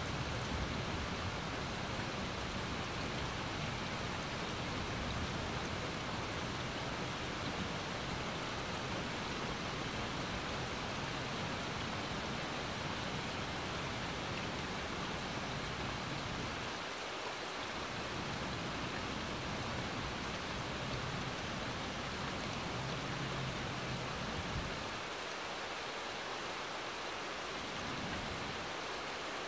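Steady rain falling on trees and a grassy lawn, an even hiss.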